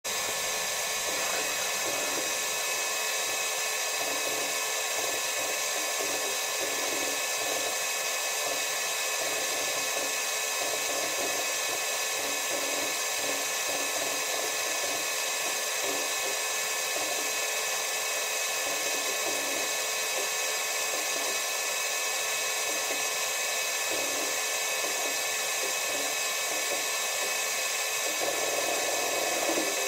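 Steady fan and ventilation noise inside a spacecraft cabin: an even hiss with several steady high whining tones. It is a little louder briefly near the end.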